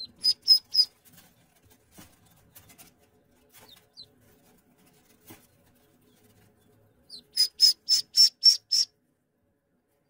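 Ducklings peeping: a quick run of about four high peeps at the start, a few faint single peeps, then a longer run of about seven peeps near the end.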